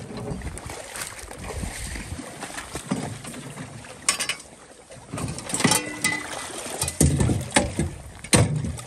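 Hunting gear being handled in and around a boat: rustling, with several sharp knocks and clunks, the sharpest about four seconds in and near the end.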